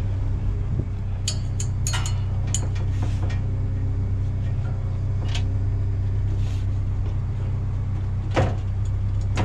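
A vehicle engine idling with a steady low hum, while scattered clicks and knocks come from handling scrap and stretch cords, the loudest knock near the end.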